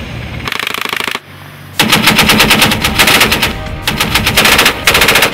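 Boat-mounted heavy machine gun firing in rapid bursts: a short burst about half a second in, then after a brief pause, longer, louder bursts from about two seconds in.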